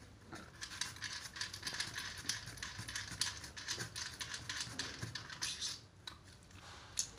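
Gloved hands handling a small air-cooled diffusion pump and its heater wiring: a dense run of scratching, rustling and small clicks that stops about six seconds in, followed by a single sharp click near the end.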